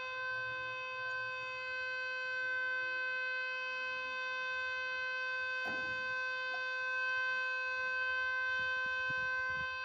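MS-290 pole-mounted warning siren sounding one steady, unwavering tone for its weekly test, with a brief knock about halfway through.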